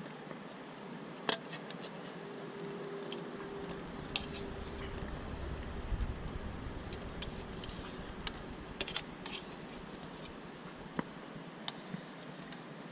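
Scattered light clicks and taps at irregular intervals over a steady low hiss, the sharpest about a second in, with a faint hum and low rumble partway through.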